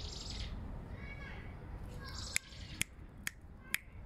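Birds chirping in short high calls in the background, then four sharp clicks about half a second apart in the second half, over a low rumble.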